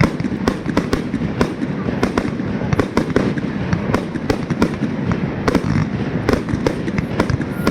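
Fireworks going off in quick succession: an irregular crackle of sharp pops and bangs, several a second, over a continuous low rumble.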